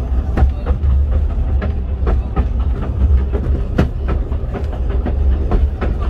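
Narrow-gauge railway carriage running along the line: a steady low rumble with irregular clicks and knocks from the wheels on the rails.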